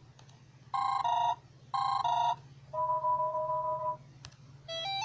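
Electronic alert tones from an Amazon Kindle Fire tablet's speaker: two short two-tone beeps about a second apart, then a steady tone held for just over a second. A single click follows, and a stepped rising melody begins near the end, over a faint low hum.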